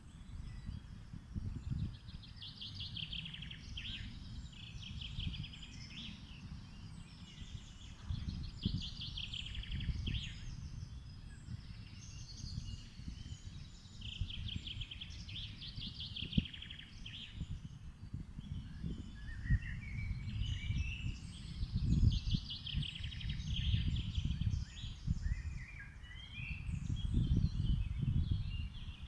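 Several birds singing and chirping in short repeated trills over a steady low rumbling noise.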